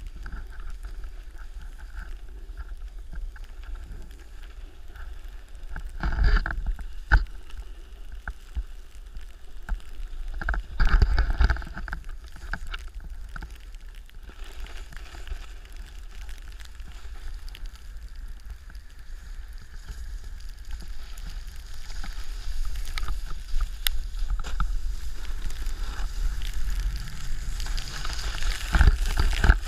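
Snowboard sliding over snow, with wind buffeting a GoPro Hero3's microphone as a steady low rumble. Two louder rushes come about six and eleven seconds in, and the scraping hiss of the board grows louder over the last ten seconds.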